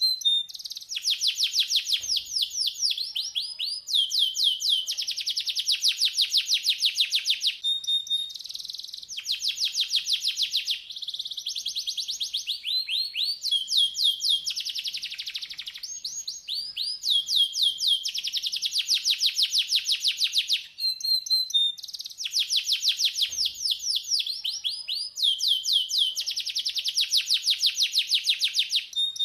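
Domestic canary singing a long, nearly unbroken song of rapid trills. Each run of fast repeated notes lasts a couple of seconds before switching to another kind of trill.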